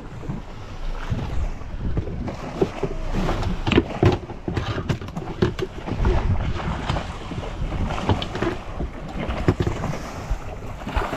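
Wind buffeting the microphone on a small boat at sea, with a run of sharp knocks and taps between about two and six seconds in and a few more near the end.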